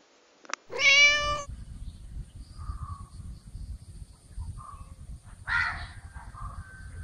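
A cat meows once, loudly, about a second in, a single held call. A few short, fainter calls follow over a low outdoor rumble, and a louder, harsher call comes about five and a half seconds in.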